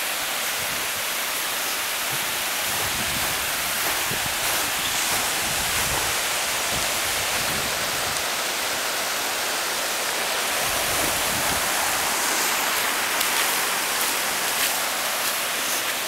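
Steady rushing of running water, an even hiss-like noise that holds at one level without a break.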